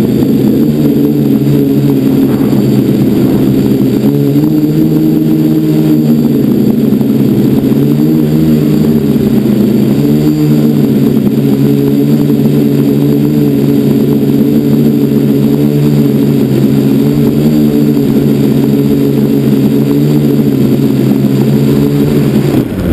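Quadcopter's electric motors and propellers buzzing loudly right by the on-board camera, the pitch shifting up and down every few seconds with the throttle. Near the end the buzz cuts off and winds down.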